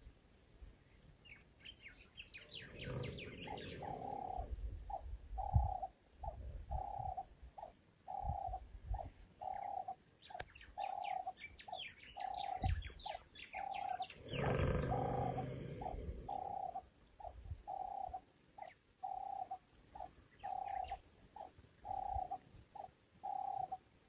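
A sleeping elephant snoring, two deep, long breaths a few seconds in and about halfway through. Throughout, a bird repeats a short two-note hooting call about once a second, with two flurries of small-bird chirping.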